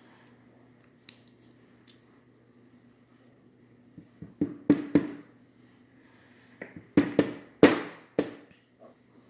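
Light metallic clicks and taps of tweezers and small lock parts being handled while a Mul-T-Lock pin-tumbler cylinder is taken apart. A few lone clicks come first, then two short clusters of sharper taps, the second the loudest.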